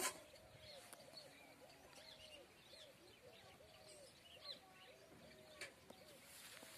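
Faint chorus of wild birds: many short, arched low calls repeating without a break, with higher chirps scattered over them. A single sharp click sounds at the very start.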